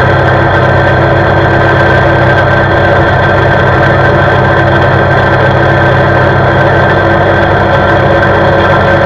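CFMoto CForce 520 ATV's single-cylinder engine running at a steady cruising speed, its note holding one even pitch with no revving up or down.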